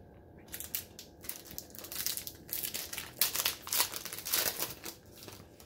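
Foil wrapper of a 2020 Donruss baseball card pack crinkling as it is pulled open by hand. Rapid irregular crackles start about half a second in, grow loudest past the middle and thin out near the end.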